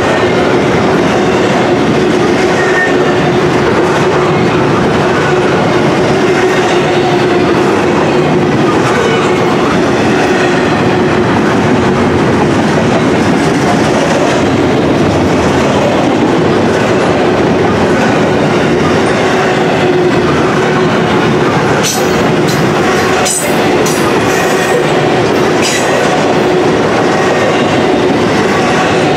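Double-stack intermodal freight train's well cars rolling past close by: a loud, steady rumble of steel wheels on rail with a steady hum running under it. A few sharp clicks come about three-quarters of the way through.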